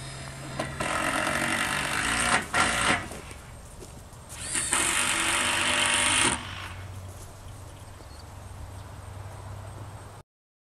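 Power tool running in two bursts of about a second and a half each, with a few sharp knocks between them, over a steady low hum; the sound cuts off shortly before the end.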